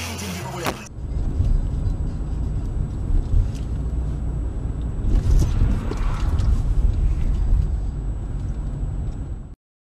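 Car driving on a snowy road, heard from inside the cabin through a dashcam microphone: a steady low rumble of engine and tyres, with a faint high whine over it and a few light knocks. It starts about a second in and cuts off abruptly near the end.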